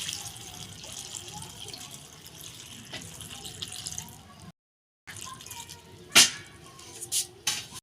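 Water sloshing and splashing as dried jujubes are washed by hand in a bowl. A sharp clatter comes about six seconds in, and two smaller knocks follow near the end.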